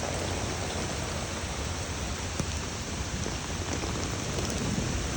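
Steady rain of a summer thunderstorm, an even hiss of falling water with no breaks.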